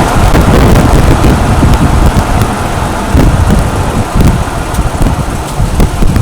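2005 Toyota Tacoma under way, a loud low rumble and drone from the drivetrain and road with scattered knocks, easing somewhat toward the end. The owner suspects a bad driveshaft carrier bearing.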